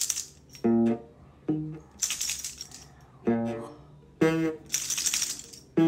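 Background music: short plucked guitar notes alternating with bursts of shaker rattle in a repeating pattern.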